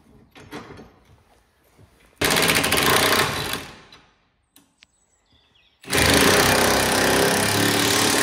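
Cordless impact wrench hammering bolts home on a tow hitch, in two bursts: a short one of about a second and a half, then a longer one.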